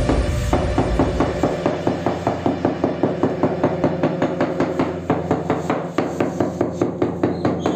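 Small hand tool struck rapidly against the joints of floor tiles, making quick, even, sharp taps about five times a second.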